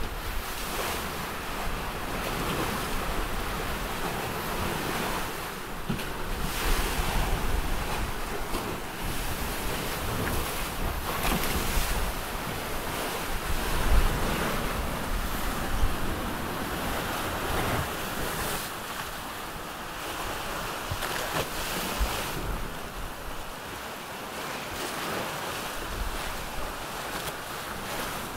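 Wind buffeting the microphone over the rush and slap of waves along the hulls of a sailing trimaran in a strong breeze. The noise swells and eases in surges, with the loudest surge about halfway through.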